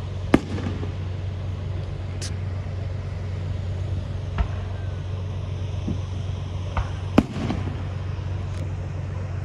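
Fireworks going off: a series of sharp bangs, the loudest about a third of a second in and just after seven seconds, each followed by a short crackle, with smaller pops between. A steady low hum runs underneath.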